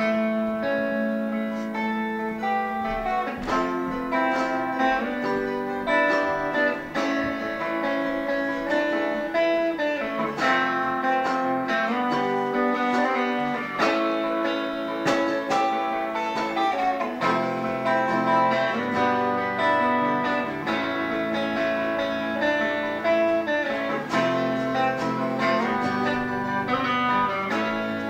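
Two electric guitars, one through a small amplifier, and an acoustic guitar playing a rock and roll tune together as an instrumental band practice. Deeper notes join in a little over halfway through.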